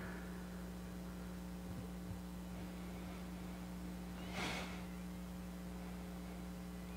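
Quiet room tone under a steady electrical hum, with one brief, faint breathy noise about four and a half seconds in.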